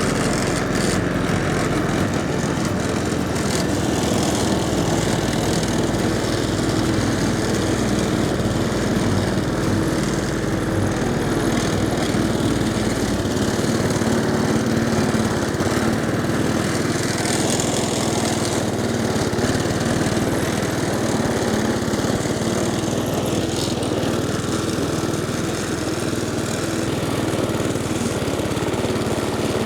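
MowRator S1 Pro 4WD lawn mower running steadily while cutting grass.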